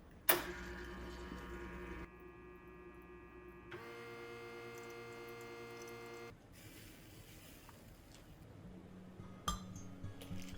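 A small electric appliance motor switched on with a click and humming steadily, its tone changing twice before it cuts off about six seconds in.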